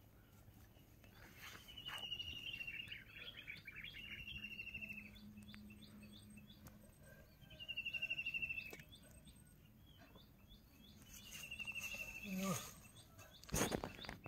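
Birds calling: a short, fast high trill, slightly falling, repeats four times, over a steady series of brief high chirps. A loud knock about a second before the end.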